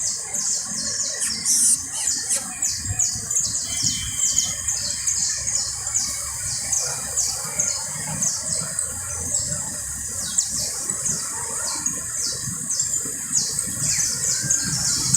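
Canary singing: a long run of short, high chirps, each sweeping downward in pitch, two or three a second.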